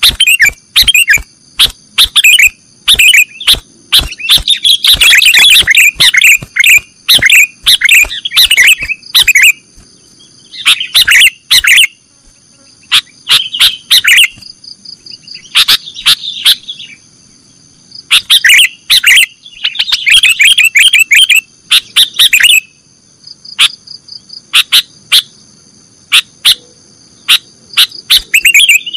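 Sooty-headed bulbul (kutilang) calling loudly in the 'nggaruda' style, with rapid chattering bursts in clusters a few seconds long and brief pauses between them. A steady high-pitched insect-like buzz runs underneath.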